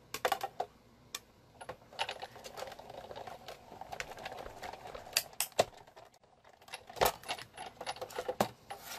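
Clicks, taps and rustling of craft tools and paper being handled and set down on a cluttered desk, with a few sharper knocks.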